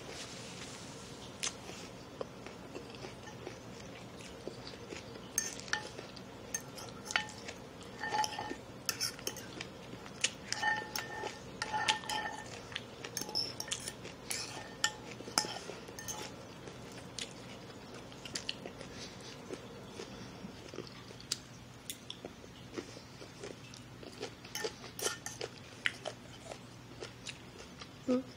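A metal fork clicking and clinking against a dish while salad is picked up, in scattered clusters of sharp taps, some with a short ringing clink, with quiet chewing of crunchy salad between them.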